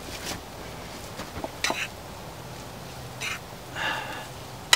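Metal fork scraping and clinking in a frying pan of hot vegetables: a few short scrapes spread out, a brief hiss shortly before the end, and a sharp tap at the end.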